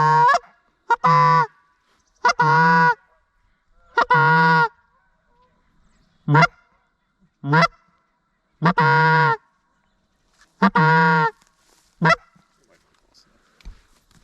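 A goose honking: about nine single loud honks at uneven intervals of one to two seconds, each with a short upward break in pitch at the start.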